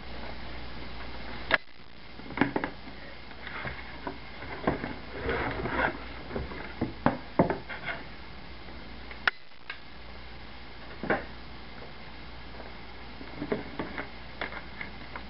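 A sealed power-supply box being opened and its contents handled: irregular knocks and clicks with patches of rustling, the sharpest snaps about one and a half seconds and nine seconds in.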